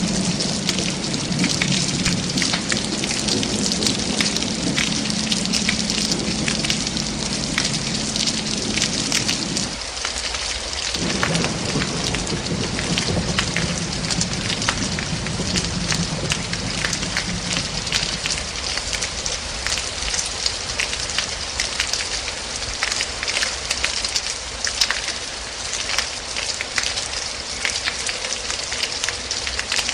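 Steady heavy rain with the patter of many individual drops striking a surface. A low rolling rumble of thunder runs under it, breaks off for a moment around ten seconds in, and dies away about two-thirds of the way through, leaving the rain alone.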